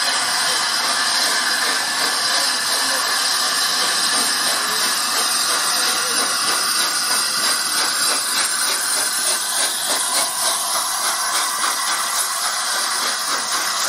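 LNER A3 Pacific steam locomotive 60103 Flying Scotsman passing, a loud, steady hiss of steam and running noise, with a regular pulse coming through in the second half.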